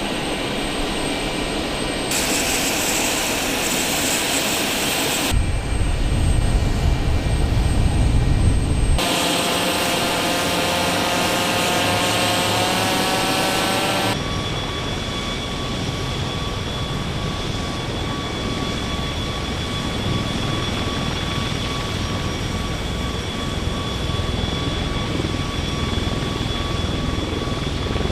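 Aircraft turbine engines running, heard in a series of cut-together clips. Partway through, a whine rises slightly in pitch, and the last half is a steady drone with a high whine.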